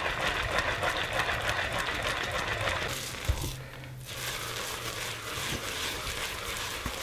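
Wooden spoon stirring and scraping thick, crystallizing maple sugar in a stainless steel stockpot: a steady gritty crunching, as the boiled-down syrup dries and hardens into granulated sugar. One knock of the spoon against the pot a little over three seconds in, and a brief lull just after.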